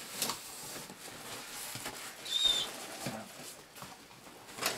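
Large cardboard box being handled and cut open with a box cutter: scattered scrapes and rustles of cardboard and tape, a short high squeak about halfway through, and a sharper scrape near the end.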